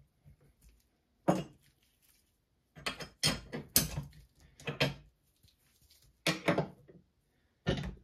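Short metallic clicks and clinks, about six scattered over several seconds, from an RCBS 9mm seater/crimp die and its lock nut being turned and locked down by hand on the steel threads of a reloading press.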